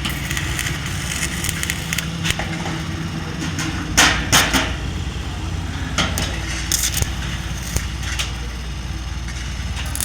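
Electric arc welding on sheet metal: a steady irregular crackle and sputter over a low machine hum, with a few louder metallic bursts about four seconds in.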